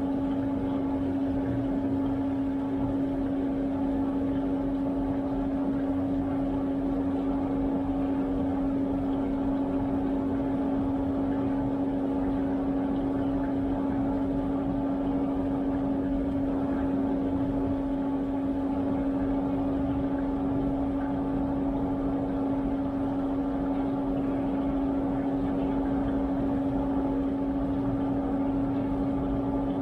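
Washtech UL Premium undercounter commercial dishwasher running mid-cycle: a steady, unchanging hum from the machine.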